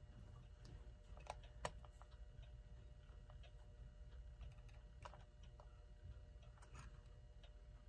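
Near silence with scattered faint, irregular clicks and taps of small metal parts and tools being handled, while WD-40 is applied around the nut holding the clock hands.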